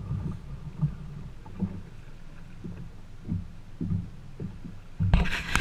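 Water slapping and lapping against a boat's hull as it rocks at sea, an uneven low rumble with irregular soft knocks. A much louder burst of noise comes in near the end.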